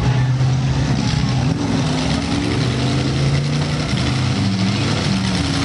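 Engines of several six- and eight-cylinder demolition derby cars running and revving together, their pitches shifting up and down every second or two.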